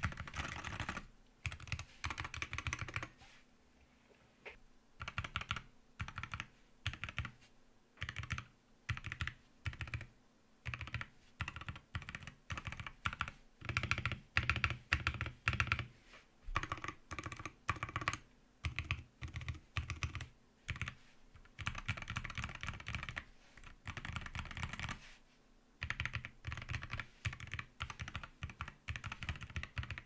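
Typing sound test on a Wooting 60HE Hall-effect keyboard modded with a Tofu60 case, a polycarbonate switch plate, lubed switches and a tape mod. Quick runs of keystrokes are broken by short pauses about three seconds in and again near the end.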